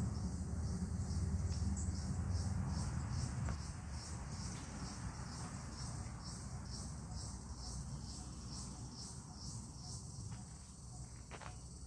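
Insects chirping in a steady, high-pitched rhythm of about three pulses a second, over a low rumble that is loudest in the first few seconds. A few faint clicks come near the end.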